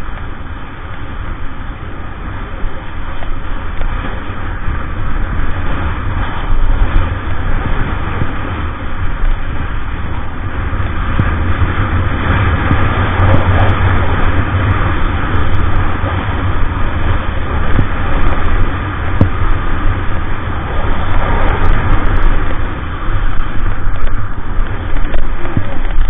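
Wind buffeting an action camera's built-in microphone during a ski run, a heavy low rumble, with the hiss and scrape of skis sliding over packed snow. It grows louder through the run, with the strongest gusts in the second half.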